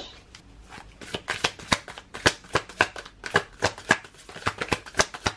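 Thick, new Necronomicon tarot cards being shuffled by hand: a quick run of card slaps and riffles, about five a second, starting about a second in.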